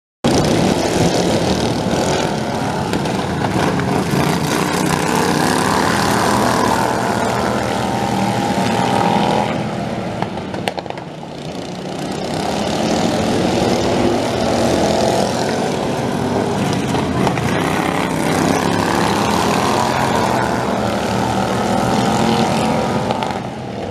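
Several racing lawn mowers' small engines running hard together as a pack laps the dirt track, their pitches rising and falling as they pass. The sound dips briefly about ten seconds in, then builds again.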